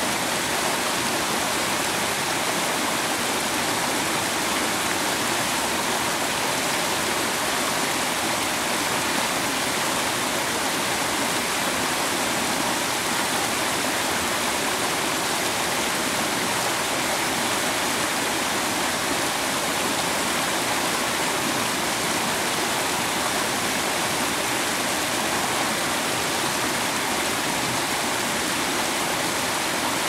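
Small forest waterfall cascading over rock ledges into a shallow pool: a steady, unbroken rush and splash of water.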